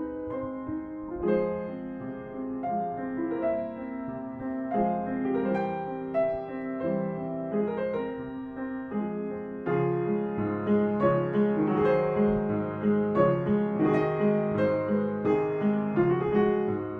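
Background piano music playing a melody; lower notes join about ten seconds in and it grows fuller and a little louder.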